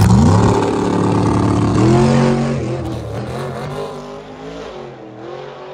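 Nitrous-fed Corvette V8 drag car launching hard down the strip on a 400-shot of nitrous. The engine note climbs, holds, climbs again about two seconds in, then fades quickly as the car pulls away.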